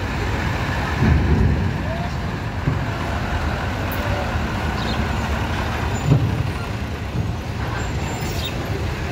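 Engine of a container cargo truck running as it drives slowly past at close range. The low rumble swells about a second in and again around six seconds.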